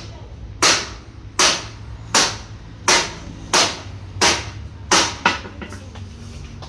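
Hammer blows on metal, struck at an even pace of roughly one every 0.7 s, eight in all, with the last two coming close together, over a steady low hum.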